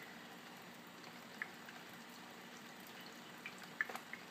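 Faint, steady trickle of a kitchen tap running into the sink, with a few small wet clicks from handling peeled roasted peppers, most of them near the end.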